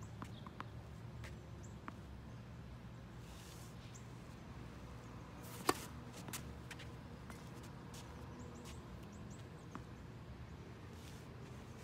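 Tennis rally: one sharp crack of a racket striking the ball about halfway through, with a few fainter ball bounces and footsteps. A steady low outdoor rumble runs underneath.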